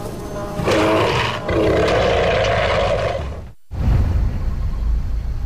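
Bear roaring twice, a short roar and then a longer held one, followed after a sudden cut-off by a deep low rumble.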